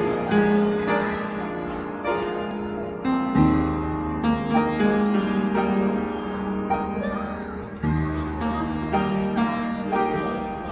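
Background music: a calm instrumental piece with piano-like keyboard chords and a low bass note that comes in about three seconds in.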